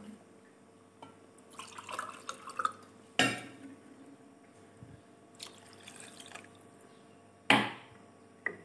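Faint liquid and dripping sounds from a kadhai of watery mutton gravy, with two sharp knocks, one about three seconds in and one near the end.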